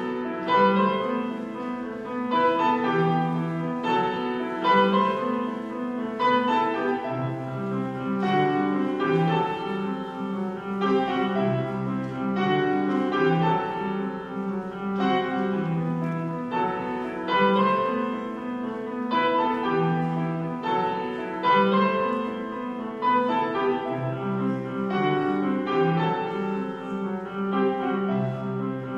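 Grand piano played solo: a continuous piece with a steady flow of notes over a moving bass line.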